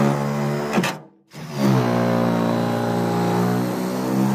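Ryobi cordless reciprocating saw with a long blade cutting through the foam inside an aluminium jon boat's bench seat. The motor runs steadily, stops just before a second in, and starts up again a moment later, its pitch rising as it gets back up to speed.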